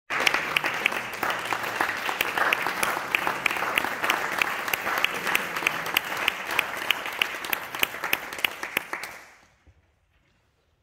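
Audience applauding, fading out about nine seconds in.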